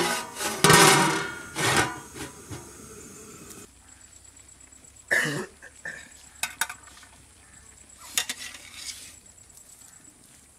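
Large aluminium cooking pot and lid clanking, with a metal spoon scraping and stirring in the pot. Then a ladle scooping cooked rice out of the pot, with a scrape and a few sharp clicks of metal on the rim.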